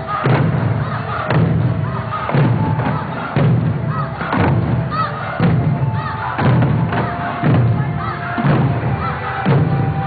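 Eisa drums, large Okinawan taiko beaten in unison on a steady beat of about one stroke a second, over festival music.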